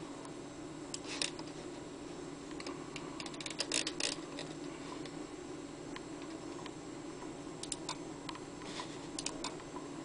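Computer mouse being scrolled and clicked: scattered light clicks and ticks, a couple about a second in, a quick flurry around the middle and a few more near the end, over a steady low hum.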